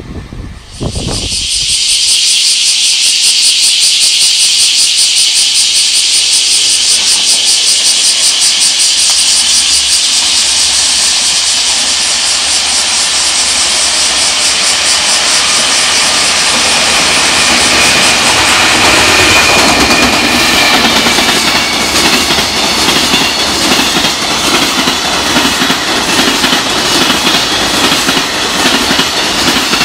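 Container freight train hauled by a JR Freight EF210 electric locomotive passing at close range, with a loud, steady high hiss throughout. In the second half the rumble and clatter of the container wagons' wheels over the rail joints builds.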